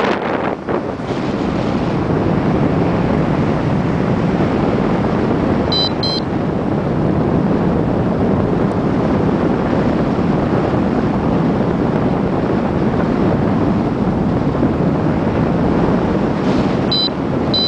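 Strong wind buffeting the microphone in a steady rush. A pair of short, high electronic beeps comes about six seconds in, and another pair near the end.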